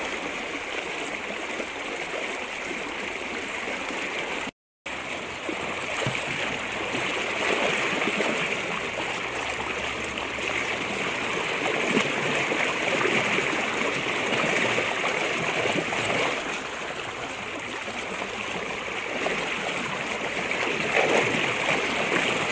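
Shallow river current rushing and splashing around the wader's legs as his feet kick up the stony riverbed just upstream of a seine net. A steady rush of water that cuts out completely for a moment about four and a half seconds in.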